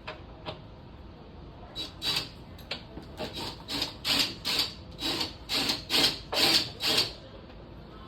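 A run of about a dozen quick rubbing strokes, roughly two a second, starting about two seconds in and stopping about seven seconds in.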